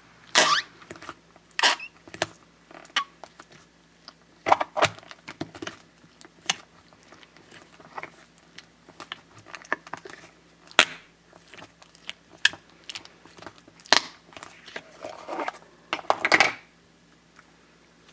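Fart-noise putty in a toilet-shaped pot being squished by fingers pushed into it, giving irregular squelching, fart-like noises that stop shortly before the end.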